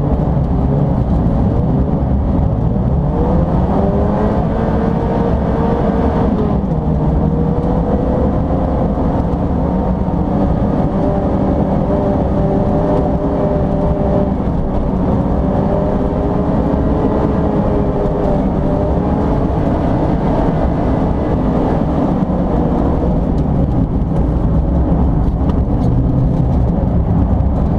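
Mazda MX-5 race car's engine heard from inside the cabin, its pitch rising and falling as it revs through the gears under hard driving, over a steady low rumble of road and wind noise.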